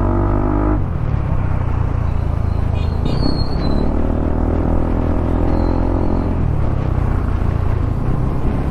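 Yamaha NMAX scooter's single-cylinder engine running under way, with a heavy low rumble. The engine note climbs at the start and eases off about a second in, then holds lower.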